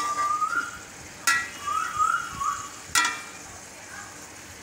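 Slotted metal spatula stirring minced meat, tomatoes and green chillies frying in a pot, with a steady sizzle and two sharp clinks of the spatula on the pot, about a second in and near three seconds. A pet parrot whistles a few short rising notes in between.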